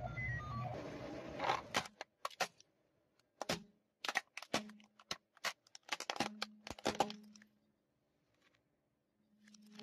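Plastic toy police car being crushed under a car tyre: a series of sharp cracks and snaps as the plastic body breaks apart.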